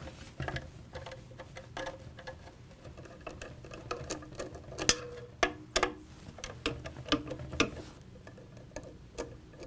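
Hand nut driver loosening the 5/16 hex fasteners in a fan rotor's hub: irregular clicks and light metal taps of the tool against the screws, with a few sharper knocks in the middle.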